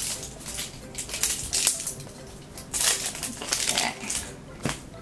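A hard plastic blind-box capsule and the thin plastic bag inside it being handled and pulled open: irregular crinkling and crackling in short bursts.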